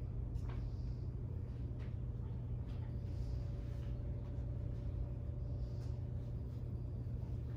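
Room tone of a meeting hall: a steady low hum, with a few faint scattered clicks and rustles.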